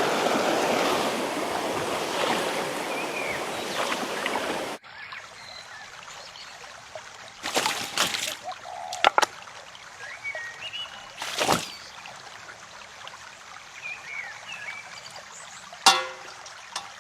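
Mountain stream running, loud for the first few seconds and then much quieter after an abrupt cut, with a few sudden splashes in the water and faint short chirps.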